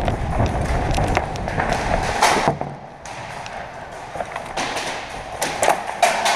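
A player sprinting to cover: heavy footfalls and gear jostling against a body-worn microphone, with a dense rumble for the first couple of seconds. After that it is quieter, with scattered sharp clicks and a few knocks.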